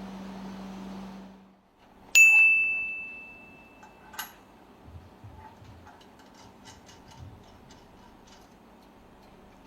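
A steady machinery hum fades out, then a sharp metallic strike rings on one clear high note, fading over about two seconds, followed by a click and light scattered ticking and tapping, like metal tools or parts being handled.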